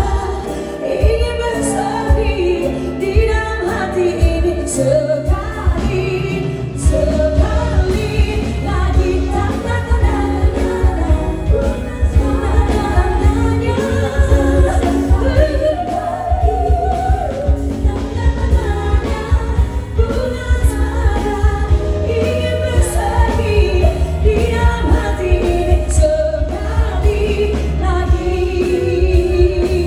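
A singer performing a pop song with a live band behind her, the bass strong and steady under the vocal line, with occasional cymbal or drum hits.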